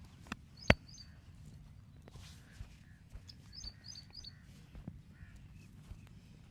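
A sharp crack about two-thirds of a second in, just after a smaller click, from the stick massage, followed by a few light taps. Small birds chirp in short pairs near the start and again around the middle.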